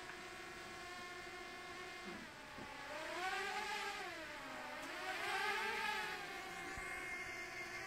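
An engine running with a steady drone, its pitch rising and falling twice about halfway through.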